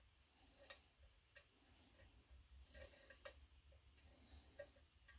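Faint, irregular clicks of a Multipick V41 lock pick probing the pins inside a Goal GCY-79 lock, a few sharp ticks a second or so apart over near silence.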